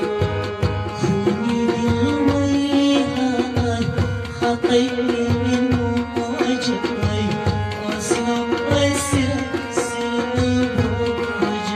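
Harmonium playing a melody over held reed tones, with tabla strokes keeping a steady rhythm beneath it.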